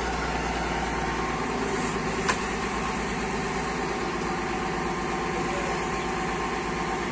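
Forklift engine idling steadily, with a single sharp knock about two seconds in.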